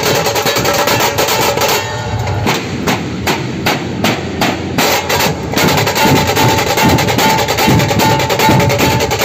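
Dhol-tasha troupe playing: many large dhol barrel drums beaten with sticks, together with tasha drums, in a fast, dense rhythm. From about two seconds in the playing drops to single heavy unison strikes, two or three a second, then the full fast beat comes back at about the six-second mark.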